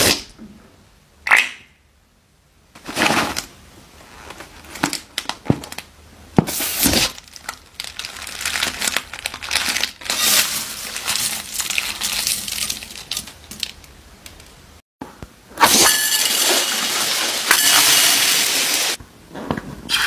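Slime-filled balloons being snipped open with scissors, their slime and sequins spilling and squelching into glass bowls in a run of uneven crackles and rustles. A denser, louder rustling stretch comes near the end.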